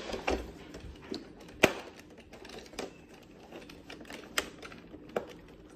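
A few scattered sharp plastic clicks and taps as fingers pry at the edge of a Roborock robot vacuum's plastic top cover, working its clips loose.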